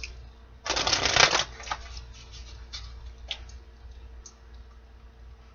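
Tarot deck being shuffled by hand: one quick burst of shuffling about a second in, then a few faint clicks of the cards.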